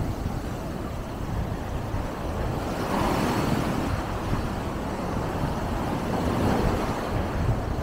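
Small waves breaking and washing up a sandy beach, with wind rumbling on the microphone. A wave breaks about three seconds in and its wash swells, then runs on steadily.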